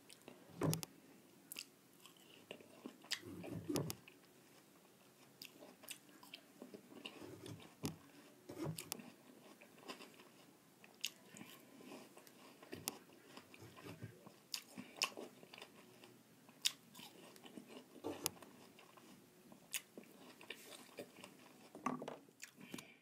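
Close-up chewing and mouth noises of a person eating small bites of food, with scattered sharp clicks between bites.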